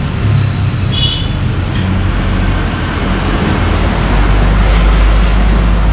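Steady rumble of motor vehicle traffic, growing heavier and deeper from about two seconds in, with a brief high squeak about a second in.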